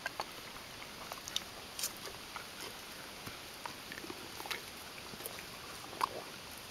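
Donkeys chewing and slurping apple, with irregular wet crunches and mouth clicks.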